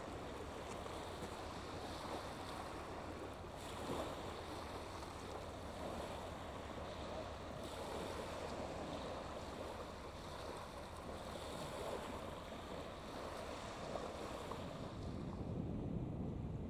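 Small waves washing onto a shingle beach, the water and pebbles hissing and swelling every few seconds. Near the end this gives way to a low rumble of wind on the microphone.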